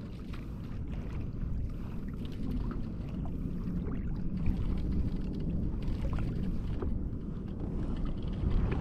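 Ocean water lapping and sloshing against a plastic kayak hull, with a steady low rumble of wind on the microphone and light scattered splashes.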